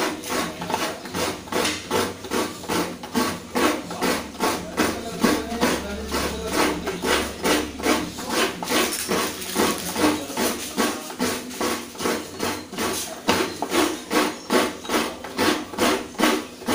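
A coconut half scraped over the serrated blade of a stool-mounted coconut grater (kudkuran), in steady rasping strokes at about three a second.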